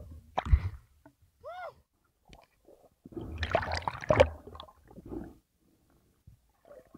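Muffled underwater sloshing and gurgling of churned water at the sea surface, loudest in a long burst about three to four and a half seconds in. A short knock comes about half a second in, and a brief squeak that rises and falls comes about a second and a half in.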